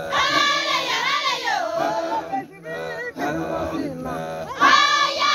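Maasai group singing a welcoming song in call-and-response style. High voices sing two loud phrases, one at the start and one near the end. Lower voices carry on between them.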